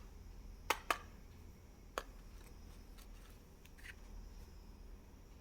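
Plastic candy packaging handled and opened: a few sharp clicks and light crinkles, two close together about a second in and one more about two seconds in, over a steady low hum.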